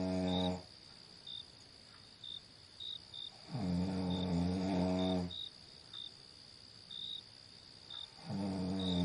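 A person snoring in long, low, pitched breaths about every four and a half seconds. Crickets chirp in short high notes in the gaps.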